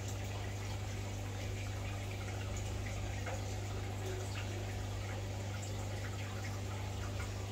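A steady low hum with faint trickling and small drips of water, as from aquarium equipment running around small fish tanks.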